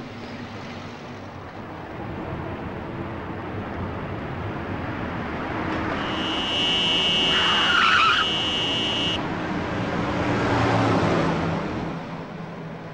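Minibus on the road with engine and road noise building. About six seconds in a loud, high-pitched steady tone starts suddenly and cuts off abruptly some three seconds later, and a vehicle noise swells and fades a little after it.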